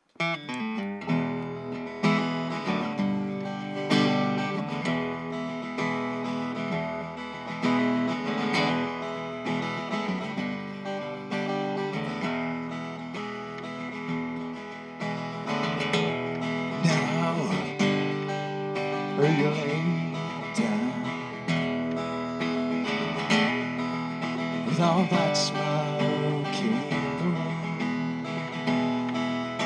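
Solo steel-string acoustic guitar playing a song's instrumental opening: strummed chords with picked notes ringing over them, in a steady rhythm.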